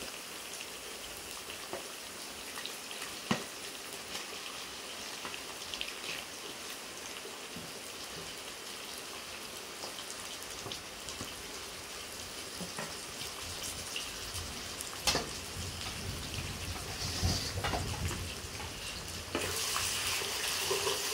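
Onions frying in oil in a metal pan, a steady sizzle, with a few sharp clicks of a wooden spoon on metal as pieces of goat liver are pushed off a tray into the pan. Near the end the sizzle gets louder as the liver is stirred into the hot onions.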